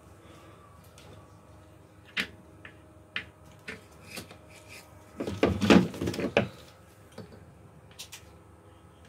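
Workbench handling noise: scattered clicks and knocks as gloved hands work wires held in a bench vice and bring a soldering gun to the joint. The loudest part is a cluster of knocks and rattles about five to six and a half seconds in.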